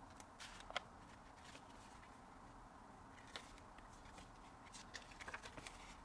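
Faint, scattered clicks and light rustles from a K-pop album's paper, card and plastic inclusions being handled, over near-silent room tone, with a small run of clicks near the end.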